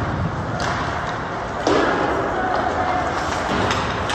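Ice hockey play in an indoor rink: sharp knocks of stick and puck, the loudest about a second and a half in, over the rink's echoing din of spectator voices.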